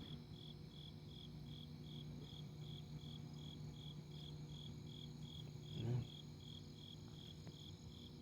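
Crickets chirping in an even, steady rhythm of about four chirps a second, over a faint low hum.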